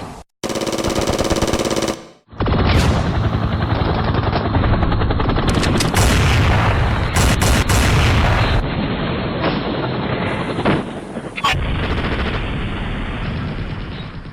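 Battle sound effect of continuous rapid machine-gun fire, broken by two brief dropouts in the first two seconds and fading out at the end.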